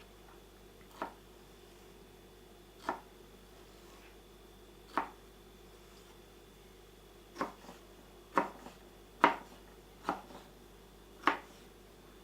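Knife knocking on a cutting board as fruit is chopped: eight separate knocks, irregularly spaced, coming quicker in the second half.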